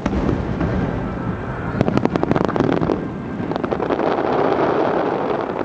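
Aerial fireworks bursting: a continuous rumble of explosions with clusters of sharp cracks about two seconds in and again after three and a half seconds, then a dense crackling shower.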